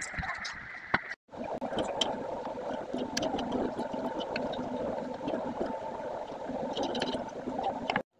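Kitchen knife slicing goat liver on a wooden board, the blade giving scattered sharp clicks against the board over a steady rushing background noise. The sound drops out briefly about a second in and cuts off suddenly near the end.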